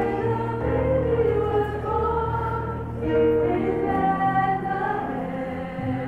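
Small group of women singing a slow song in harmony, holding long notes that shift together every second or so.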